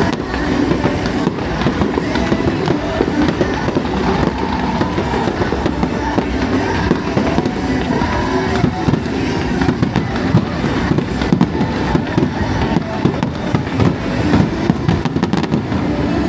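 Aerial fireworks display bursting in quick succession, a dense, continuous crackle of many sharp reports, with music playing underneath.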